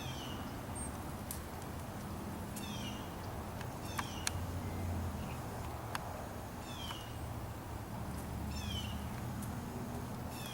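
Birds giving short, high calls that slide downward in pitch, repeated every second or two, with a few sharp clicks. A steady low rumble runs underneath.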